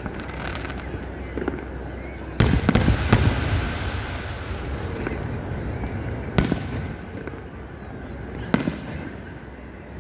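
Aerial firework shells bursting overhead: a quick run of four or five sharp bangs about two and a half seconds in, then two more single bangs a few seconds apart.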